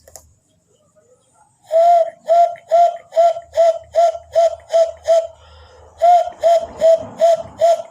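A man imitating a bird call with his voice: after a short quiet, a quick run of identical short pitched notes, about two and a half a second, breaks off briefly past the halfway point and then starts again.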